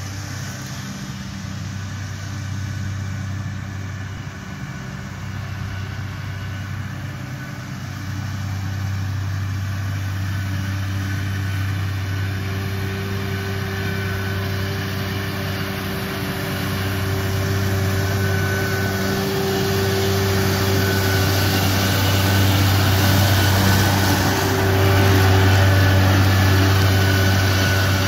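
New Holland T5.115 tractor's four-cylinder diesel engine running steadily under load while pulling a Kverneland disc mower through standing grass. It grows gradually louder as the tractor approaches.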